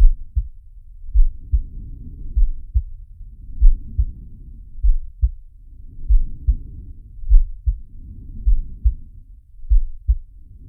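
Slow heartbeat sound effect, a low double thump a little over once a second, with slow, even breathing swelling in and out between the beats.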